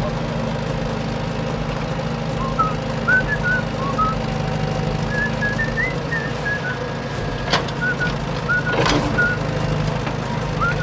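A steady low engine hum, with short high whistled chirps over it from about two seconds in and two sharp knocks near the end.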